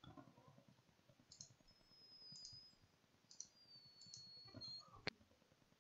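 Near silence with a few faint computer mouse clicks and a sharper click about five seconds in. A faint high whine comes twice in the middle.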